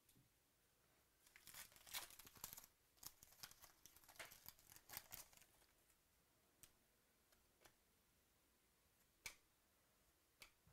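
Quiet crinkling and crackling of a foil trading-card pack wrapper for a few seconds as the cards are pulled out of it, followed by a few light clicks as the cards are handled and flipped through.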